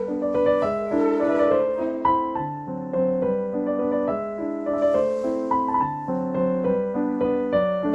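Background piano music: a gentle melody over repeating chords at a steady pace.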